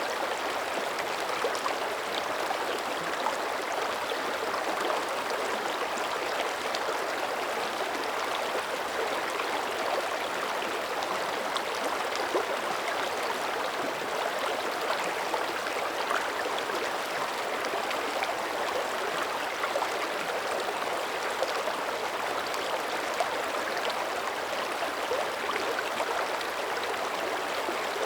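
Mountain creek running in an even, continuous rush of water, with many small splashes and gurgles on top.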